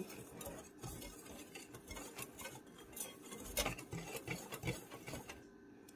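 Dry flour mix (rice flour, tapioca starch and plain flour) being stirred in a glass bowl: faint, irregular light ticks and scrapes of the utensil against the glass, a little busier past the middle.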